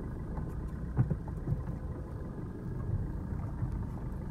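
Car driving slowly over a rough, potholed dirt road, heard from inside the cabin: a steady low rumble with a couple of light knocks about a second in.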